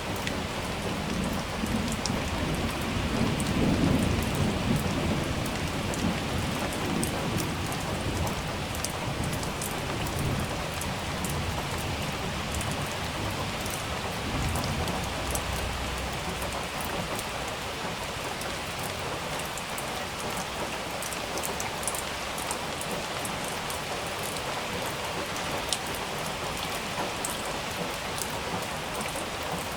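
Steady heavy rain with scattered close drop ticks, and thunder rolling low in the first few seconds, loudest about four seconds in. A fainter rumble follows about halfway through.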